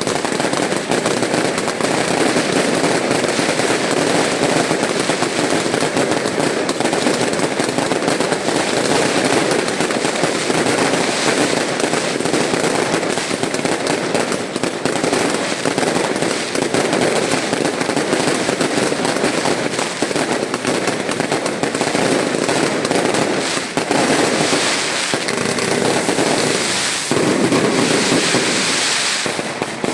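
Fireworks display in a continuous, dense barrage of bangs and crackling, with no break.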